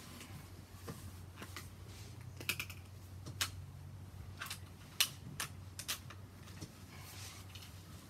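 Scattered light clicks and taps of a PCP air rifle being handled, with a low steady hum beneath. No shot is fired.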